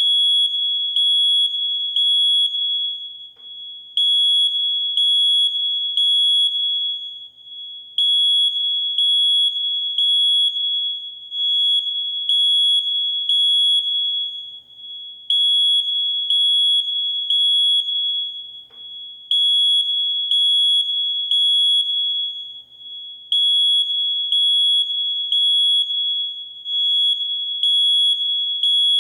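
Smoke alarm going off with a loud, high single-pitched beep in repeated groups of three, each group followed by a short pause and starting again about every four seconds: the temporal-three alarm pattern that signals smoke has been detected.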